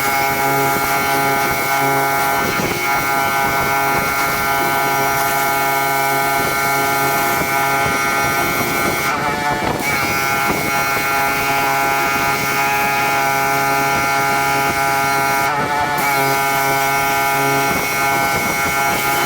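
Pressure washer's engine running steadily under the hiss of its high-pressure water jet, with two brief breaks in the spray about nine and fifteen seconds in.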